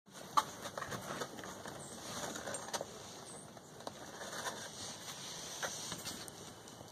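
Pet raccoon moving about on a fabric cover and handling its food: irregular soft taps and rustles, the sharpest tap about half a second in.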